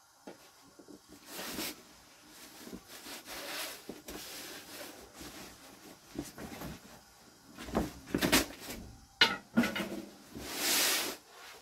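Large plastic sheet and cloth rustling as they are lifted, shaken out and folded, in several separate swishes, the loudest near the end, with a couple of sharp clicks partway through.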